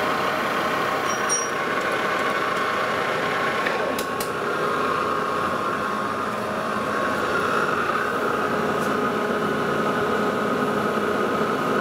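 Lodge & Shipley metal lathe running with its chuck spinning, turning a metal blank down. About four seconds in come a couple of sharp clicks and the spindle stops, while a steady machine hum carries on.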